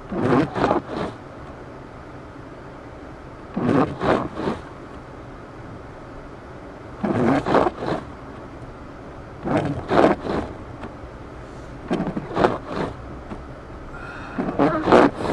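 Windshield wipers sweeping a snow-caked windshield inside a car's cabin, each sweep a scraping pass of two or three quick strokes, about every three seconds, over the steady hum of the car driving slowly.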